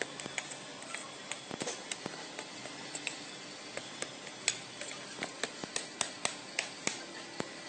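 A metal rod jabbing and knocking through packed foundry sand in a metal casting flask, breaking the mould away from a fresh casting: irregular sharp clicks and knocks, a few each second, over a steady background hum.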